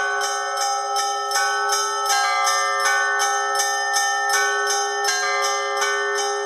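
Russian church bells ringing a peal (zvon): smaller bells struck in a quick, continuous pattern of about three strokes a second over the steady, lingering hum of the larger bells.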